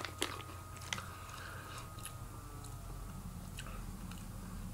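A person chewing a mouthful of Sweetos, crunchy cinnamon-sugar puffed corn snacks, with the mouth closed: a few faint crunches in about the first second, then quieter chewing.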